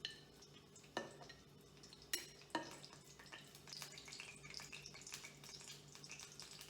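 Kitchen handling sounds while desiccated coconut is measured out by the cup: three sharp knocks of a cup or spoon against a container in the first few seconds, then a quick run of small light ticks and rustles from about three and a half seconds in. A faint steady hum lies underneath.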